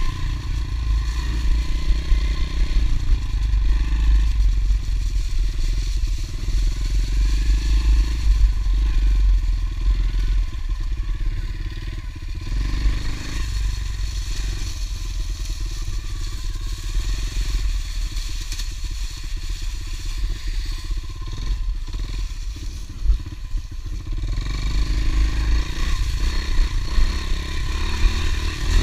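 Honda CRF110 pit bike's small single-cylinder four-stroke engine running as it is ridden along a trail, easing off and picking up now and then.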